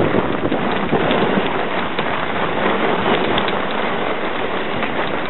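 Sledge sliding over the snow: a steady rushing scrape of the runners with scattered crackles and knocks.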